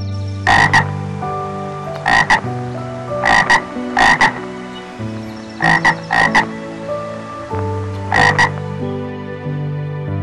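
A frog croaking in short calls, mostly in quick pairs, repeated every second or two.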